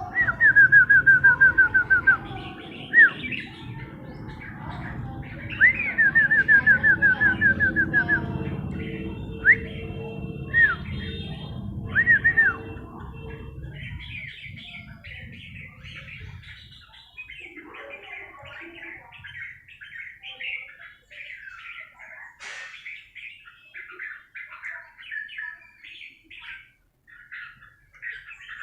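Songbirds calling: two loud runs of rapid, evenly repeated falling whistled notes, with single whistles between them, give way about halfway through to continuous busy chirping and chattering. A low rumble sits underneath for the first half.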